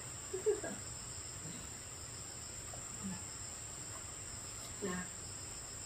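Crickets chirping in a steady, high-pitched continuous chorus, with a few brief falling vocal sounds over it, the loudest about half a second in.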